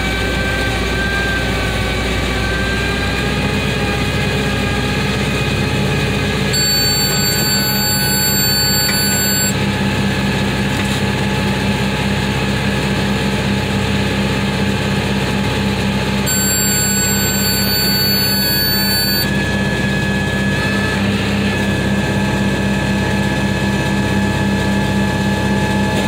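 Tractor engine running steadily while driving a round baler baling hay. A high, steady electronic tone sounds twice, each about three seconds long, roughly a quarter and two-thirds of the way through.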